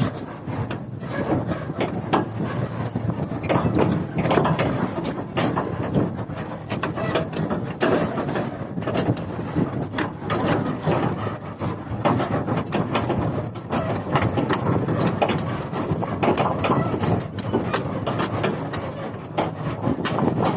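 Hyundai 210 excavator's diesel engine running under a steady, dense noise, with frequent sharp clanks and knocks scattered through it.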